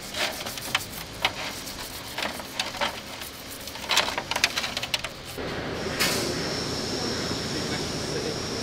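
Brush scrubbing a greasy steel axle spindle in a bucket of solvent, with irregular clicks and scrapes of metal and liquid splashing. About five seconds in, a steady hiss starts and runs on.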